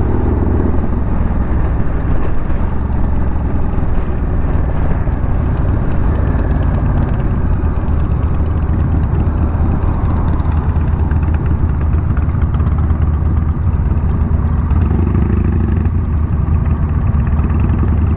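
Honda Rebel 1100 DCT's 1084 cc parallel-twin engine running steadily while the motorcycle is ridden, heard through a helmet or bike-mounted mic.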